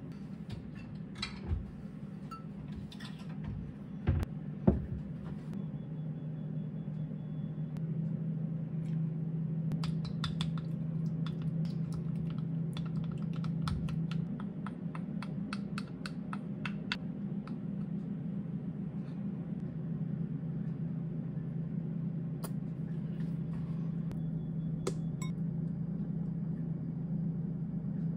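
Small kitchen handling sounds over a steady low hum: a few clicks and knocks in the first seconds, then a run of quick clicks from a wooden spoon stirring sauce in a glass bowl, and a few more taps later on.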